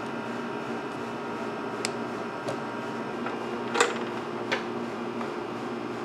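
A few short, light clicks and taps of wires and metal parts being handled inside a metal amplifier chassis, four in all, the sharpest about four seconds in, over a steady background hum.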